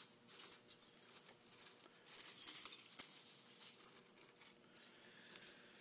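Faint, irregular scratchy crackling of a seat-cutting machine's boring cutter working through a beryllium exhaust valve seat in a Ducati 1098R cylinder head, with chips rattling; the seat is nearly cut free.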